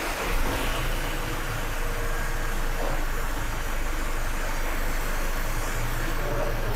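Aerosol parts cleaner spraying in a steady hiss as the coupling parts are washed, with a low hum underneath. The spray cuts off right at the end.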